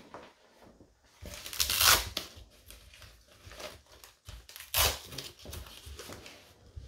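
Packaging being handled: irregular crinkling and rustling, with two louder tearing rustles, one about a second and a half in and one just under five seconds in.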